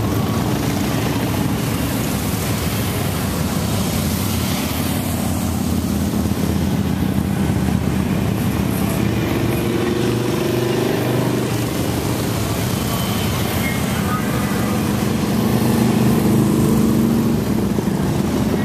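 Cruiser motorcycles riding past one after another at low speed, their engines running in a steady overlapping drone. The engine pitch bends as bikes pass, and one pass is a little louder near the end.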